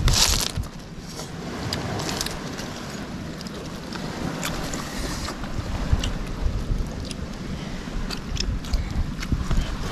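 Wind buffeting the microphone over water sloshing around a small fishing boat, with a loud burst at the very start and scattered light knocks.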